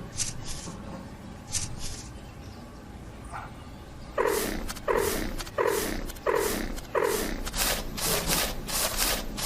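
Rhythmic scraping or rubbing strokes, like something rasped back and forth over wood. A few soft scrapes come first; about four seconds in the strokes grow louder and regular, roughly one and a half a second, and come quicker near the end.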